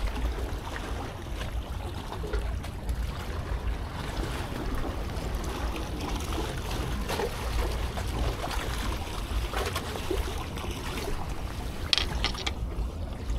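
Steady low rumble of wind on the microphone and sea water around a breakwater, with faint handling noises and a short burst of crisp rustling about twelve seconds in.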